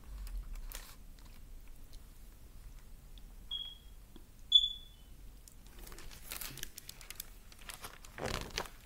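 Pages of a large hardcover picture book being handled and turned, the paper rustling, loudest in the last few seconds. Two short, high-pitched chirps about a second apart come near the middle.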